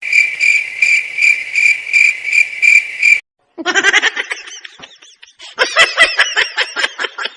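A cricket-like chirp, a high steady tone pulsing two or three times a second, stops abruptly about three seconds in. After a brief gap comes a quick run of high, squeaky chirps that bend up and down in pitch.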